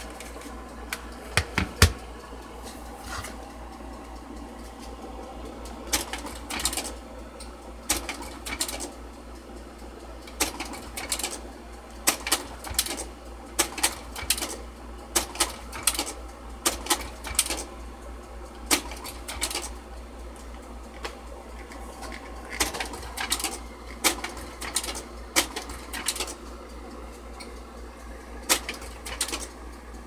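Kodak Carousel 4400 slide projector changing slides on command from a wireless remote: repeated mechanical clacks of the slide-change mechanism and advancing tray, in clusters every second or two, over a steady low hum.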